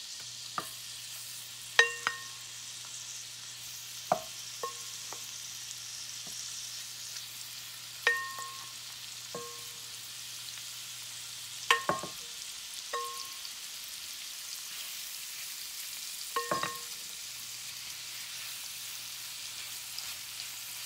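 Seasoned pork pieces sizzling as they go into hot oil and butter in a cast iron skillet, a steady frying hiss. About a dozen sharp clinks, each ringing briefly, come at uneven intervals as utensils knock against the pan.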